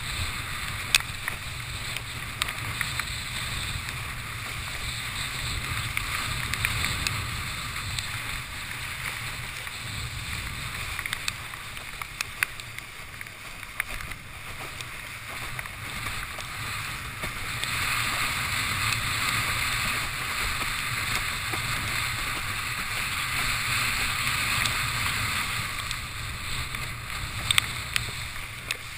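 Windsurf board sailing fast over choppy water: a steady rush of water and wind with a low rumble, broken by scattered sharp taps and slaps as the board hits the chop. It grows louder for several seconds past the middle.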